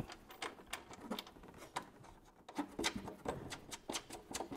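Faint, irregular small clicks and scrapes of metal hardware as a nut and washer are fitted by hand onto a bolt behind a fairing mounting bracket.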